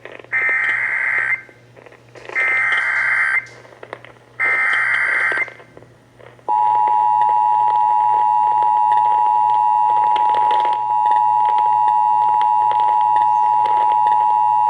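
Emergency Alert System header: three bursts of SAME digital data tones, each about a second long, then the EAS two-tone attention signal (853 and 960 Hz sounding together) held steadily for about eight seconds. It marks the start of an emergency alert broadcast, here a severe thunderstorm warning.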